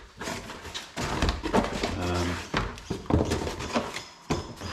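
Sonar-kit parts (brackets and packaging) being handled and unpacked: rustling and clattering with knocks, and a short low hum about two seconds in.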